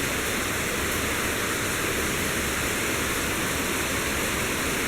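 Heavy rain falling steadily: a dense, even hiss with no break, from a passing hurricane rain band.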